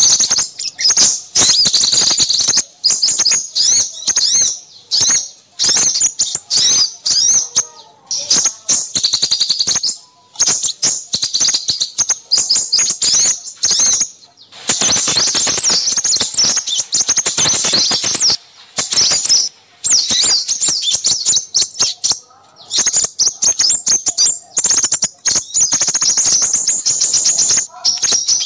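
Many small birds chirping and twittering in rapid, high-pitched, overlapping calls: a busy bird-lure recording used to draw in crimson sunbirds. A harsher, noisier stretch of calling comes about halfway through.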